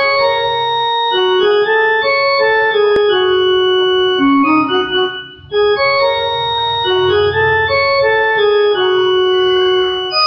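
Casio electronic keyboard playing a melody of held notes in an organ-like voice, one note running into the next. The playing drops out briefly about five seconds in and picks up again.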